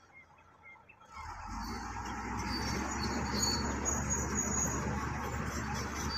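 After about a second of quiet, the low rumble of a working bulldozer's diesel engine sets in and grows louder, then holds steady, with high-pitched chirping over it.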